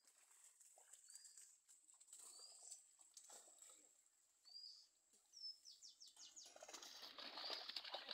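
Faint outdoor quiet with a few short, high bird chirps. From about two-thirds of the way in comes water sloshing and splashing as a man wades in shallow pond water.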